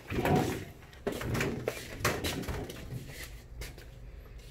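Objects being handled and set down: a rustling clatter at the start, then a series of scattered sharp clicks and knocks.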